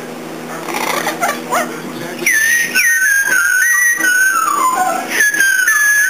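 Double yellow-headed amazon parrot whistling: after a quieter opening, a long whistle starts about two seconds in and falls in steps from high to low pitch.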